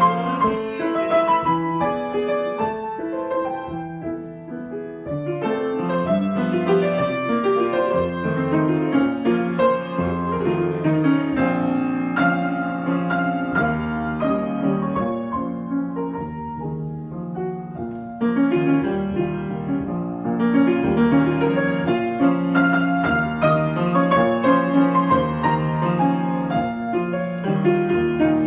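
Solo piano improvisation: chords and melodic lines played continuously, easing off to a softer passage a few seconds in, then rising to a louder, fuller passage about two-thirds of the way through.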